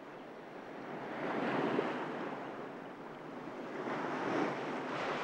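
Ocean surf washing onto a sandy beach, swelling and falling back twice.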